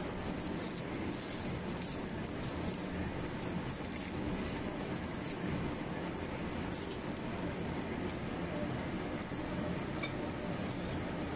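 Corn fritters frying in shallow oil in a wok: a steady sizzle with scattered small crackles and pops.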